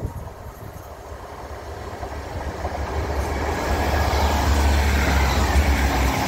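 GWR Class 165 Turbo diesel multiple unit approaching and passing: engine rumble and wheel-on-rail noise growing louder from about two seconds in, with a strong low rumble as the train goes by.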